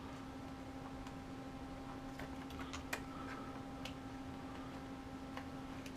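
Scattered light clicks and ticks of small plastic parts and cable being handled, with the loudest near the middle, over a steady low hum.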